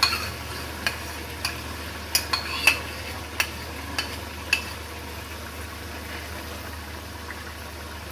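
Chicken gravy simmering and sizzling in a wok over a low flame, with about eight sharp pops and crackles in the first half as cream is poured onto it, then a steady sizzle.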